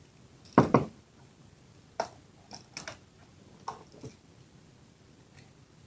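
Channel-lock pliers and the small metal RC shock parts clacking and knocking as they are handled: a sharp double knock just under a second in, then a few lighter clicks over the next three seconds.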